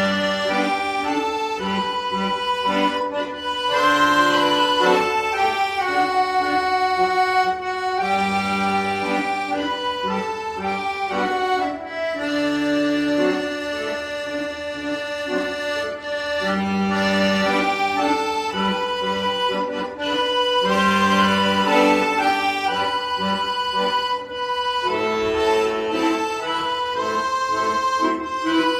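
Accordion playing a slow melody over sustained chords, with a low bass note returning every few seconds.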